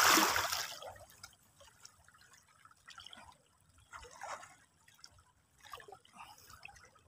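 Shallow seawater splashing and lapping: a louder rush of water in the first second, then faint, scattered drips and small splashes.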